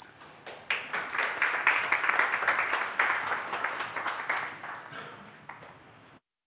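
Audience applauding, starting about a second in and dying away over the following seconds, then cutting off suddenly near the end.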